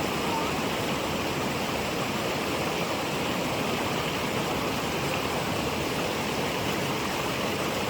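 Small waterfall's water rushing steadily.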